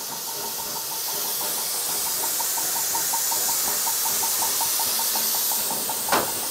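Steam starts hissing suddenly and steadily from USATC S160 steam locomotive 5197, with a quick, even ticking under it. A single sharp knock comes about six seconds in.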